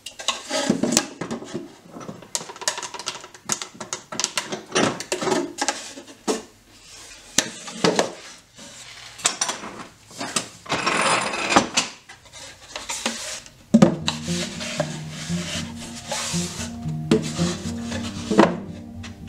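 Pallet-wood box and boards being handled on a wooden workbench: irregular wooden knocks and scrapes as the box is turned over and set down. Background music comes in about three-quarters of the way through.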